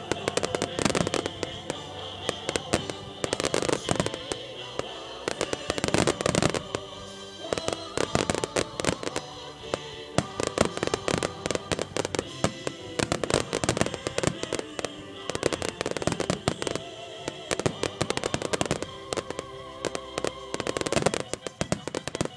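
Starmine fireworks barrage: shells bursting and crackling in rapid, dense volleys, with music playing alongside. The bursts stop abruptly at the very end.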